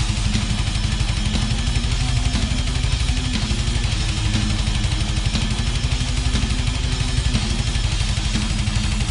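Loud heavy-metal music: a distorted electric guitar riff over a fast, dense low beat.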